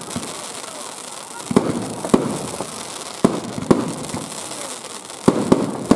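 Fireworks bursting close by: about six sharp bangs at uneven intervals, each followed by a short echoing rumble, over a steady hiss.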